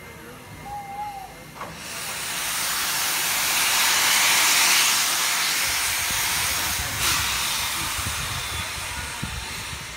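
Steam locomotive blowing off steam in a loud hiss that starts suddenly a couple of seconds in, swells, then slowly dies away.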